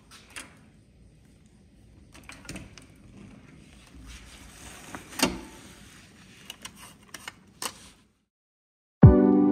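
Handling sounds: a run of scattered clicks and knocks, the loudest a single knock about five seconds in. Near the end there is a moment of silence, then music with sustained notes begins.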